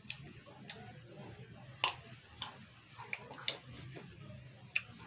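Close-up chewing of raw kapokan fruit: irregular crisp crunches and wet mouth clicks, the loudest about two seconds in.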